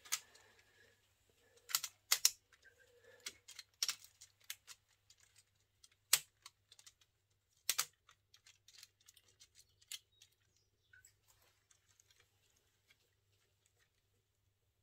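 Plastic Lego Technic parts clicking and clacking as a hand works the model tank's autocannon mechanism. A handful of sharp clicks in the first eight seconds, then fainter ticks that die away.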